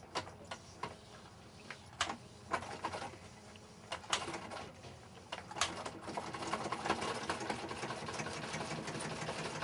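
Electric sewing machine stitching heavy sailcloth for a jib patch: a few separate clicks and knocks as the handwheel is turned by hand, then the machine running steadily from about six seconds in.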